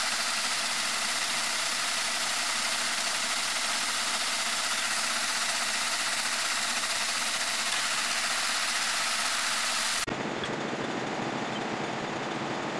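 Metal lathe running with a steady mechanical noise, which turns abruptly deeper about ten seconds in.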